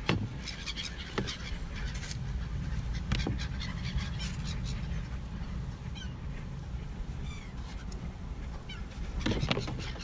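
Gulls calling in short squawks over a steady low rumble of strong wind, heard through a car window, with a few soft knocks, the loudest near the end.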